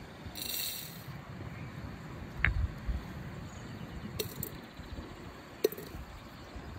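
A few small glass clinks and taps: whole strawberries are dropped one at a time into a glass teapot onto dry black tea leaves. There is a brief rustle near the start, a ringing clink about two and a half seconds in, and two more sharp clicks later.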